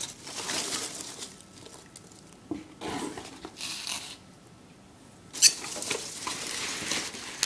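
A cardboard box being handled and rummaged by hand: three spells of rustling and scraping, with a sharp knock a little past halfway.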